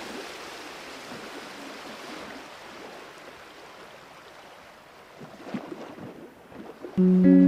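Ocean surf washing onto a beach, a steady rush that slowly fades. Guitar music comes in suddenly near the end.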